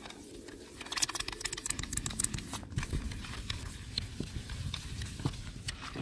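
Wet magic sponge (melamine foam) scrubbed by hand across a uPVC door panel: a run of quick, scratchy rubbing strokes starting about a second in.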